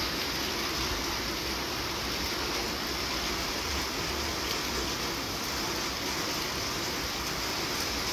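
Rain falling steadily, an even hiss with no let-up.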